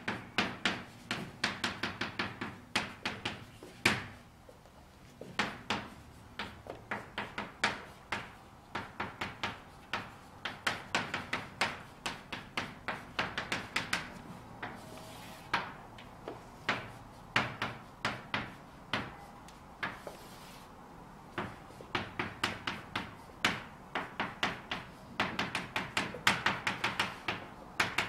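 Chalk tapping and scraping on a chalkboard as characters are written by hand: quick clusters of sharp clicks, several a second, with short pauses between words and two longer scraping strokes in the middle.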